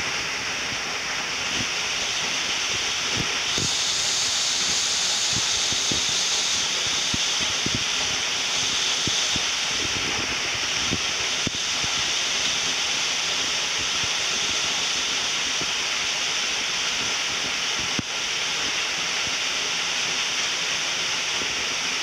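Steady rushing hiss of falling water at a tall waterfall, with a few faint low knocks scattered through it.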